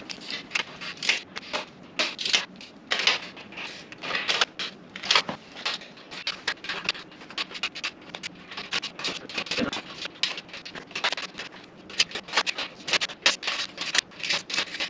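Nuts and bolts on a steel workbench frame being tightened with a Phillips screwdriver and a 10 mm socket: a run of irregular short metallic clicks and scrapes.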